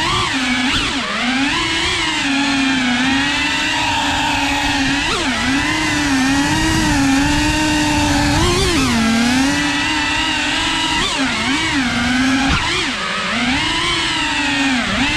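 Cinewhoop FPV drone's motors and propellers whining, the pitch rising and dipping repeatedly as the throttle changes while it manoeuvres.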